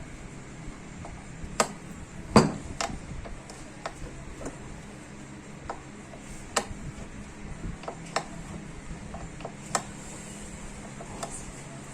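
Scattered metal clicks and clinks of hand tools and small parts being handled while a power steering rack and pinion is taken apart, irregularly spaced, with one louder knock a couple of seconds in.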